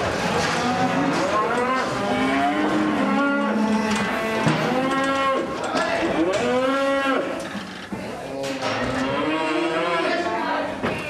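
A group of calves bawling, many arching calls overlapping one after another.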